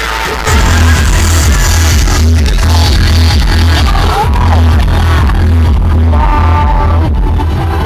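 Background music, with a heavy bass line that comes in and makes it louder about half a second in.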